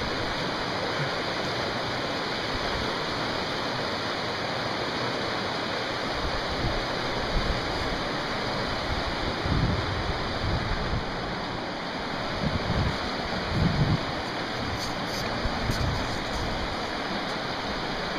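The Upper Caney Fork River rushing steadily over its rocks, with a few low thumps in the middle stretch.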